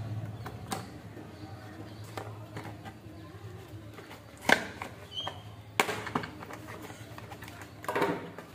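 Cardboard boxes slit open with a folding knife and handled: scattered scrapes, crinkles and sharp clicks, the loudest about halfway through, with rustling near the end as a lamp is pulled from its box. A steady low hum runs underneath.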